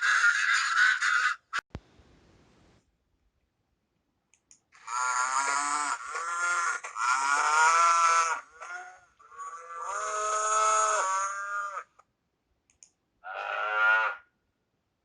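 Cattle mooing: about five drawn-out calls that start about five seconds in, the last one shorter and after a short pause.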